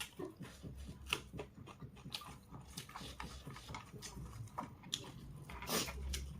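Close-up eating sounds: chewing with frequent wet mouth clicks and smacks at an irregular pace, and a louder noisy bite or slurp near the end.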